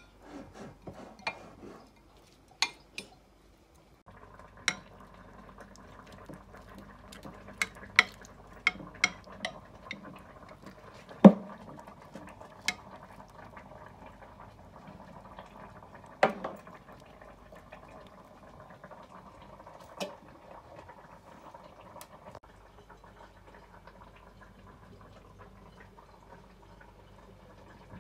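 A spatula clinking and scraping against a glass dish while spreading thick caramel sauce: scattered sharp clicks with softer sticky scraping between them, the loudest two near the middle.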